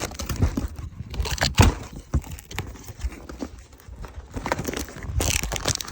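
Bags of chips crinkling and knocking together as a box of them is tipped and packed into a tote, in irregular clicks and rustles.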